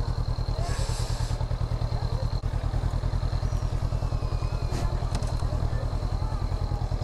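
Honda CB500X's parallel-twin engine running at low revs with an even, rapid pulsing as the bike creeps along at walking pace. A brief hiss about a second in.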